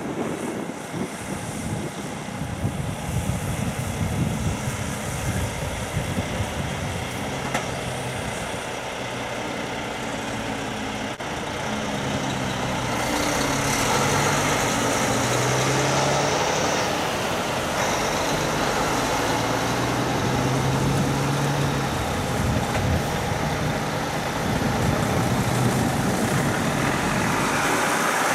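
Heavy diesel truck-and-trailer units driving past and pulling away, the engine note rising and falling repeatedly as they work up through the gears, growing louder about halfway through.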